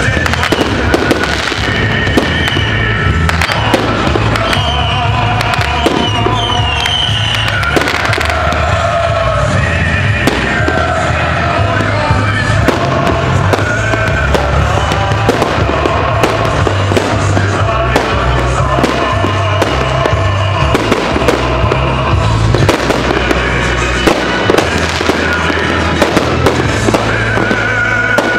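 Fireworks salute: many bangs and pops of shells launching and bursting, at an uneven pace, over loud music.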